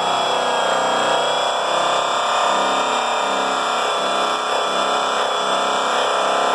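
Electric angle grinder running with a pad pressed against an aluminum truck drive wheel, doing the first cut of polishing the rim. A steady high whine with a grinding sound underneath that shifts as the pad is worked over the metal.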